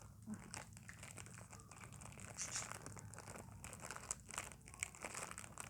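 Packaging of a chocolate snack pack being crinkled and handled as it is opened: a quiet, irregular run of crackles and rustles.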